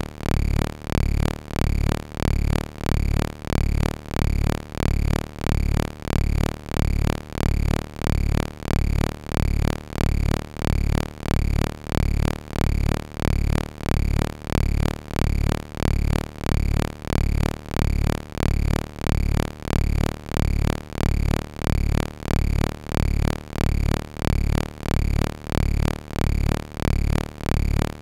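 Chiptune music from a ZX Spectrum's AY sound chip: a short electronic loop of pulsing bass notes, about four pulses every three seconds, repeating unchanged.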